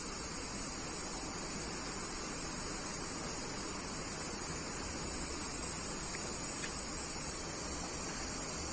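Steady hiss of running water, as for bathing cockatiels.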